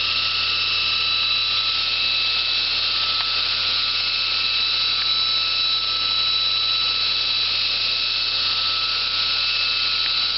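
Belt grinder running steadily: an even high hiss with a few constant whining tones.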